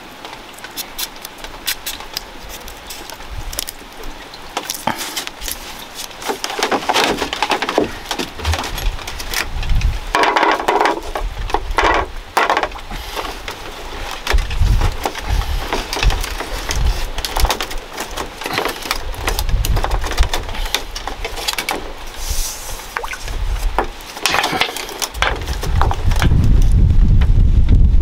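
Thin bamboo strips being woven and handled: clicking, creaking and rustling, with several louder bursts as the woven bamboo mat is worked on the bamboo-slat floor. Near the end, wind buffets the microphone with a low rumble.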